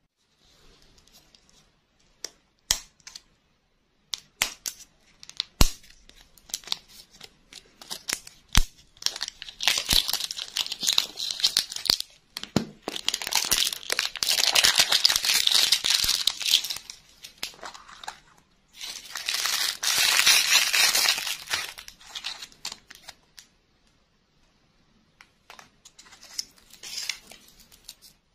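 Printed foil wrapper being torn and crinkled off a ball-shaped lollipop's plastic capsule, in two long crackly stretches. Scattered clicks and taps from the candy being handled come before and after.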